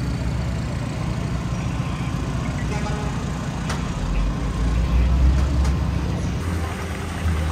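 City street traffic: motor engines rumbling steadily, with a heavy vehicle's low rumble swelling and loudest from about four to six seconds in. A single sharp click sounds near the middle.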